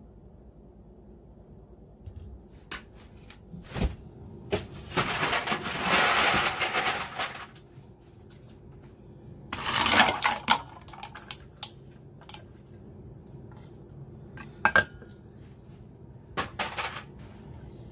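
Fizzy kombucha poured through a metal mesh strainer into a stainless steel cup, a pour of about three seconds followed by a shorter one about ten seconds in. Around them, sharp metal clinks and taps as the strainer and a metal lid are handled and set down.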